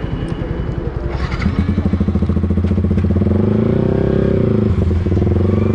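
Yamaha R15 V3's single-cylinder engine through an SC Project S1 aftermarket exhaust: a lumpy idle that rises about a second and a half in as the throttle opens, climbing for a couple of seconds, then holding at higher revs with a brief dip near the end.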